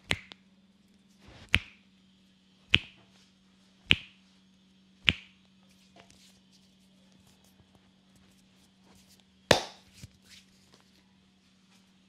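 Finger knuckles cracking as the masseur pulls the client's fingers one by one: five sharp pops about a second apart, then after a pause a louder one.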